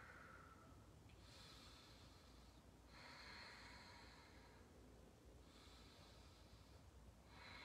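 Faint, slow breathing held through a seated yoga twist: three long breaths of a few seconds each, with short pauses between them.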